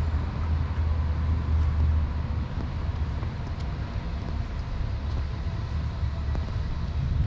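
Outdoor city street ambience: a steady low rumble with a faint background haze.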